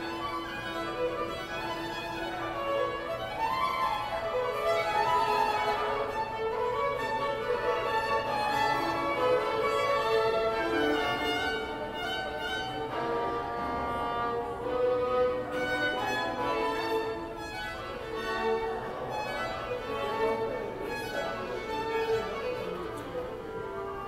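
Violins played live by a trio of buskers: a melody of held notes and quick runs up and down the scale, without a break.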